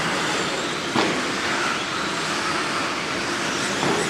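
Radio-controlled 2WD short course trucks racing on an indoor dirt track: a steady din of their motors and tyres on dirt, with a single sharp knock about a second in.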